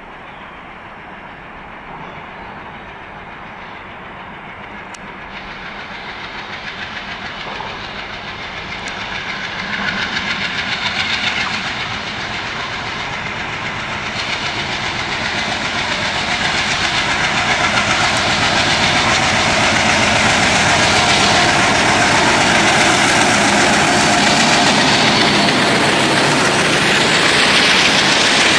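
WDM3D ALCO-type diesel-electric locomotive approaching out of a tunnel and running past, its engine sound growing steadily louder, then its wagons rolling by over the rails.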